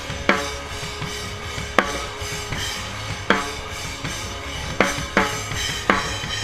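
Live band's drum kit heard close up from the kit: heavy, slow hits about every second and a half over the band's steady sustained low tones, the drumming getting busier near the end with several quick hits in a row.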